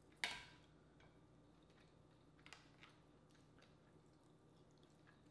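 Dungeness crab shell being broken apart by hand: one sharp crack about a quarter second in, then a few faint ticks and clicks of shell, otherwise near silence.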